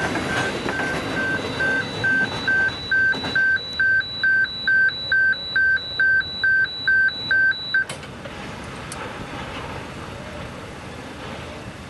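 Railway level crossing warning bell sounding a steady electronic ding about twice a second over the rumble of loaded coal hopper wagons rolling past. The bell cuts off suddenly about eight seconds in as the end of the train clears the crossing, leaving the fainter rumble of the departing train.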